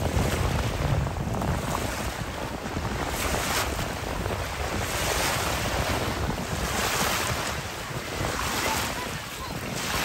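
Wind buffeting the microphone over small waves washing on the beach: an even rushing noise that swells and eases every second or two.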